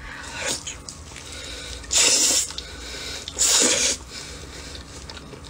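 Close-miked wet mouth sounds of someone biting and chewing braised lamb off the bone, with small smacks and squishes, and two loud breathy rushes of air about half a second long, roughly two and three and a half seconds in.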